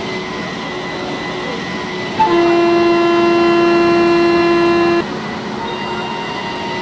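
Locomotive horn sounding one steady, single-pitched blast of nearly three seconds, starting about two seconds in and cutting off sharply, over the steady background noise of a railway station.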